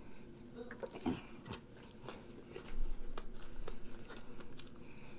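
A person biting into a bagel burger and chewing it with the mouth close to the microphone: a run of short wet clicks and smacks, getting louder and busier about three seconds in.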